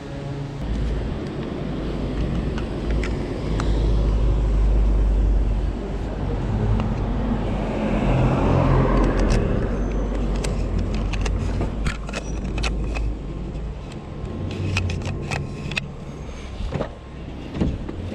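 Street sound of a car going past: a low rumble with a swell of road noise that builds and fades around the middle. From about halfway on come many sharp clicks and knocks of handling.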